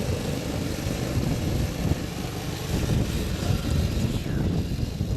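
Arctic Cat 120 youth snowmobile engine running as the machine is ridden.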